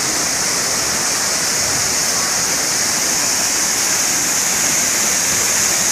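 Waterfall on a rocky mountain stream, water pouring over boulders in a steady rush with a strong high hiss.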